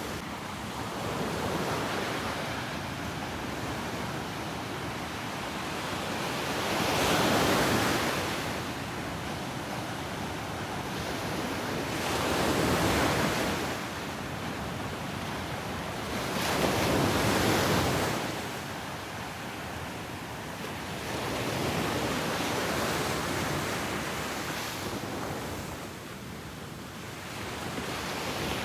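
Ocean waves breaking on a beach, with a steady wash of surf between them. Three stronger waves crash and hiss out about a third of the way in, near the middle, and again a little later, with gentler ones in between.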